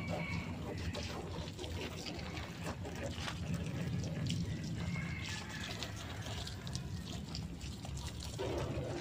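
Water from a garden hose running and splashing over a motorcycle as it is rinsed, with many small spatters and drips.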